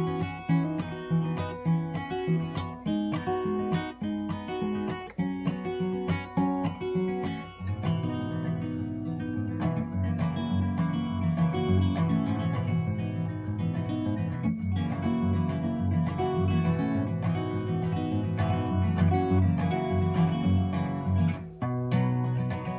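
Acoustic guitar played solo, strummed and picked chords. For the first eight seconds the chords are short and separated; after that the playing turns to fuller, continuous strumming, with a brief break and a new chord near the end.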